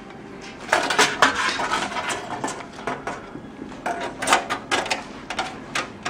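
Thin stamped-metal motherboard I/O shield being pushed into the rear opening of a steel PC case, its edges clicking and rattling against the case metal in several clusters of sharp metallic clicks as it is pressed in corner by corner to snap it into place.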